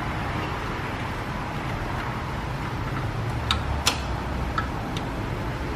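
A few light metallic clicks of a wrench working a brake line fitting, four in the second half with the second one loudest, over a steady low background noise.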